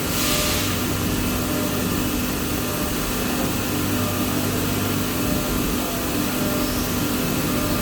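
CNC machine running steadily, a constant mechanical hum and whir, with a burst of hiss, like coolant or air spray, dying away about half a second in.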